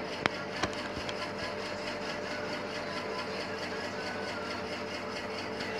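Steady background hum and hiss, with two faint clicks within the first second.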